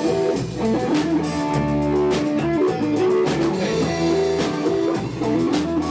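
Rock music: electric guitar playing melodic lines over a drum kit with a steady beat.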